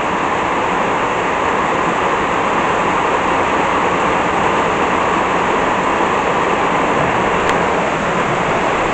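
Heavy tropical rain pouring onto a corrugated metal roof, a steady, even noise.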